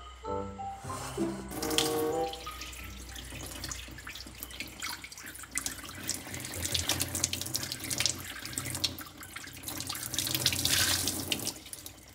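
Kitchen tap running into a sink, the stream splashing over hands and a plate as food is rinsed under it. Background music plays for the first couple of seconds before the water takes over.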